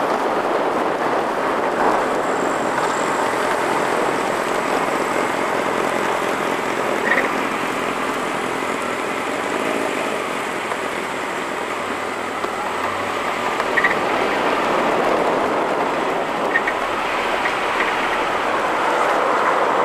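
Steady wind and road noise from a roof-mounted camera on a moving 1990 Mazda Miata, with the engine's pitch rising and falling faintly underneath. There are a few small clicks, about a third of the way in and again later.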